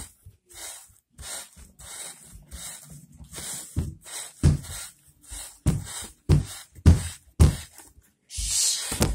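Fingers poking and squeezing a sand-filled fabric squishy, giving a gritty rustling crunch about every 0.7 seconds. Duller thumps join in about halfway through, and a longer, louder crunch comes near the end.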